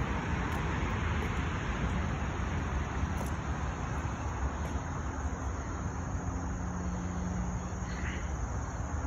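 Steady outdoor noise of road traffic rumble and wind on the microphone.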